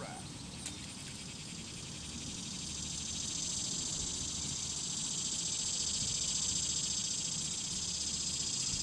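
Insects shrilling in a steady, high, fast-pulsing buzz that swells louder over the first few seconds and then holds, with one faint click about two-thirds of a second in.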